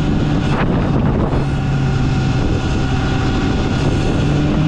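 Wind buffeting the microphone of a rider on a Sur-Ron electric dirt bike, over a steady vehicle hum whose pitch rises slightly near the end.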